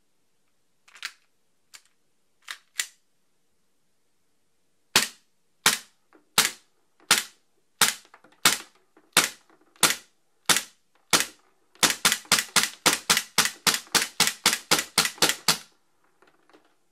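Cybergun/VFC FNX-45 Tactical gas blowback airsoft pistol firing: a few quieter clicks first, then ten sharp shots at a slow even pace, then a fast string of more than a dozen shots at about five a second. The string stops with the slide locked back on an empty magazine.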